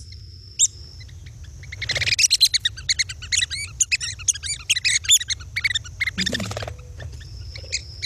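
Red-cockaded woodpecker calls: a few single sharp notes, then a dense chatter of many overlapping calls from about two seconds in until near the end, where single notes return.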